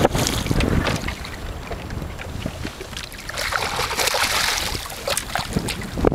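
Wind buffeting the microphone, with a hooked largemouth bass splashing and thrashing at the water's surface beside the boat about halfway through.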